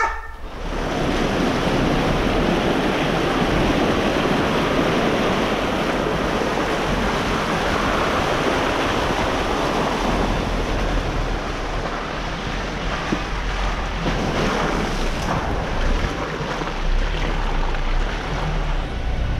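Steady rushing noise of wind over the microphone of a camera mounted outside a Jeep Wrangler Rubicon, mixed with its 35-inch tyres rolling over a dirt trail as it drives along.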